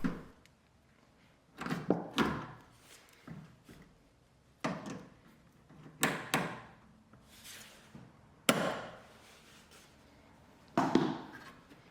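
Pliers squeezing and lifting a spring wire hose clamp off a washing machine's rubber sump hose: a series of separate clicks, knocks and short scrapes of metal against the hose and the machine's plastic, about seven in all with pauses between.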